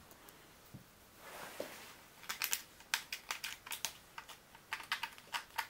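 Thin metal nail scratching and clicking in the heads of the engine's Allen screws, clearing out caked dirt so a key will seat. Quick, irregular light ticks begin about two seconds in.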